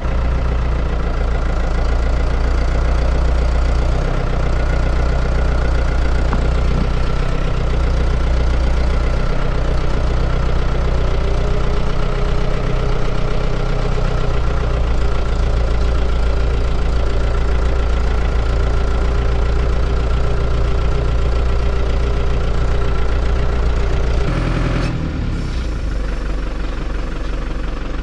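Tractor engine running steadily under load while towing a grain auger, heard from the cab. Near the end it drops to a lower, quieter note as the throttle eases.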